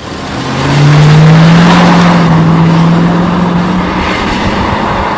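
1972 Ford Mustang driving past under power: the engine note and road noise swell to a peak about a second in, hold, then slowly fade away.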